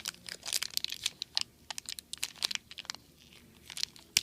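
Crinkling and tearing of a Shopkins blind basket's wrapping as it is peeled open by hand: a quick run of short crackles, a brief lull near the end, then one sharp click.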